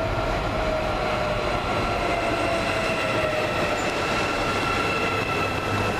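Hyundai Rotem HRCS2 electric train rolling past close by, a steady rush of running gear on the rails. Over it sits a whine that slowly drops in pitch.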